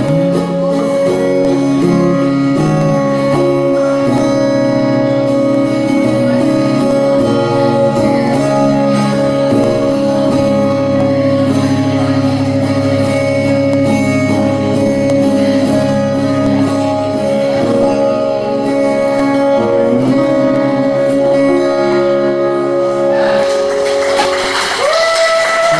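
Live song with sustained chords over a steady, even beat. Near the end the sound turns brighter and noisier, and a held note slides up.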